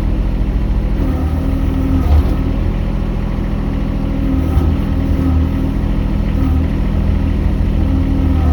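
Mini excavator's engine running steadily, its note shifting a little as the load comes and goes while it works.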